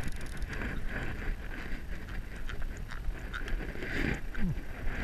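Fishing reel being cranked to haul up a double of small blowfish: a quick run of fine ticks and whirring, with wind rumble on the microphone. A short falling squeak comes about four seconds in.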